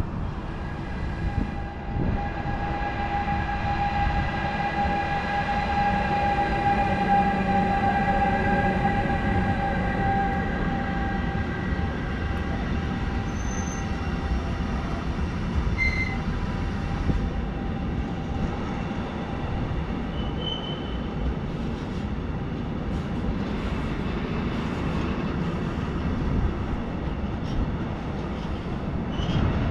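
A train moving through a station: a continuous rumble of wheels on rail, with several steady whining tones that fade out about halfway through and a few brief high squeaks.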